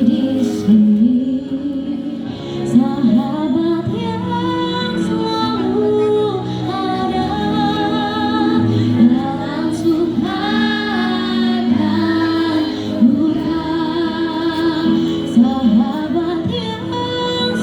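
A school choir of teenage students singing, the voices moving between held notes.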